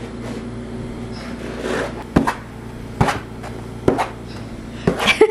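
About five short, sharp taps or knocks, roughly a second apart, over a steady low hum.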